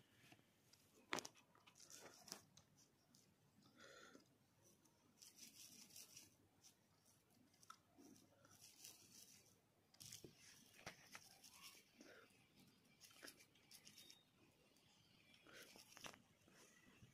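Faint squishing and rustling of hands scooping and pressing soft mashed-potato filling into rolls, with a few sharp clicks, the loudest about a second in.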